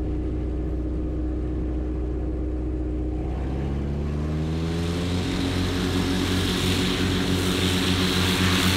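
Cub Crafters NX Cub's engine and propeller running steadily at low power, then rising in pitch from about three and a half seconds in as the throttle is opened for the takeoff roll.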